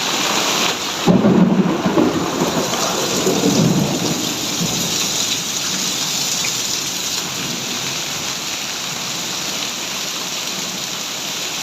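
Heavy rain pouring steadily, with a roll of thunder rumbling from about a second in and dying away by about four seconds.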